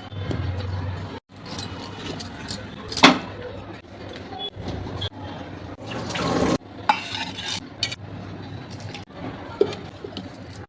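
Kitchen cooking sounds: metal utensils clinking and scraping against a pot or pan as food is stirred, with scattered sharp knocks. The sound breaks off abruptly twice, as at cuts between clips.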